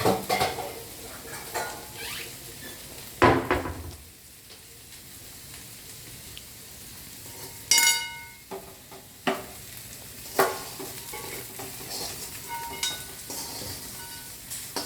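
Metal kitchen utensils and pans knocking and clinking, with a louder knock about three seconds in and a ringing clang of a steel vessel near the middle, over a faint steady sizzle of frying.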